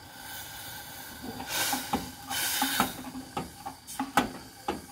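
Kitchen work on the sweet vinegar: two short bursts of hissing, then several light clinks and knocks of utensils against a pot or bowl.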